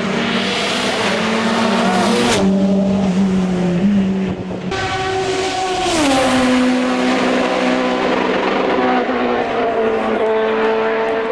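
Racing car engine running at high revs on a hill-climb course, its pitch dropping in steps several times as it changes gear.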